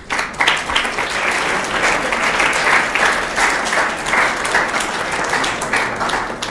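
Audience applauding, many hands clapping at once, breaking out suddenly and fading near the end.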